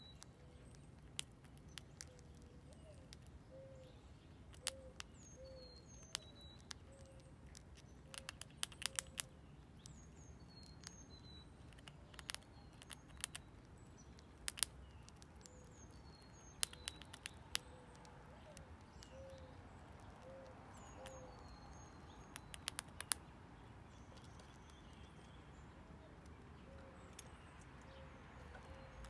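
Eastern gray squirrel gnawing dried corn kernels: sharp crunching clicks, scattered and now and then in quick clusters. Birds chirp softly in the background, with short high chirps and a repeated lower note.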